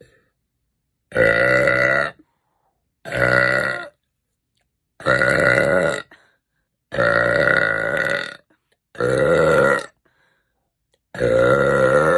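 A girl's loud, drawn-out belches: six of them, each lasting about a second, with a pitched, voice-like tone. Between them there are short gaps of complete silence where the clips are cut together.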